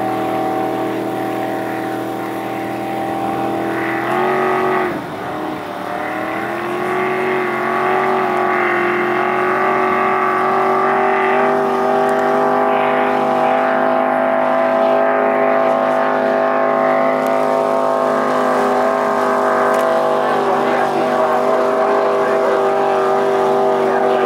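Racing hydroplane's engine running hard at steady high revs. About four seconds in the pitch dips sharply and climbs back over the next couple of seconds, then holds a steady note.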